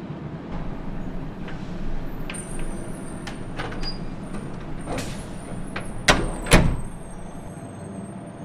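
Volkswagen Type 2 bus's air-cooled flat-four engine running steadily, with scattered clicks and knocks. Two loud door slams come half a second apart about six seconds in.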